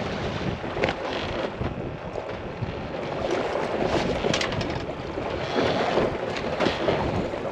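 Wind buffeting the microphone over water lapping against the hull of an anchored boat, with a few short sharp clicks and knocks scattered through.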